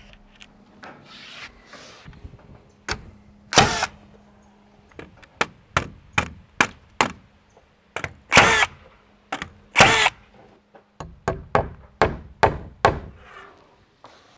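Cordless Metabo 21-degree framing nailer firing full round-head nails through OSB wall sheathing into wooden girts, about twenty sharp shots at an uneven pace starting about three seconds in.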